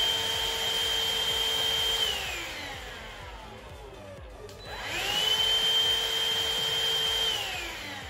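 Suction motor of a Midea VSB16B cordless stick vacuum whining at a steady pitch. It winds down about two seconds in, is switched on again and spins up to the same pitch, then winds down again near the end. Only the suction motor runs, not the rotating floor brush.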